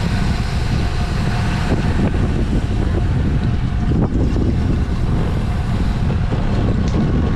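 Steady, loud wind rush and buffeting on the microphone of a moving bicycle in a road race, with rolling road noise underneath.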